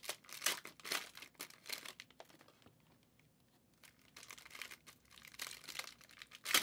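Trading cards being handled: a stack of glossy cards flipped through by hand, cards sliding and clicking against each other in short faint rustles, with a lull about midway.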